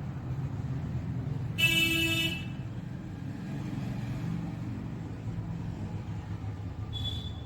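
Steady low traffic rumble, with a vehicle horn honking once, loudly, for under a second about two seconds in. A short high beep sounds near the end.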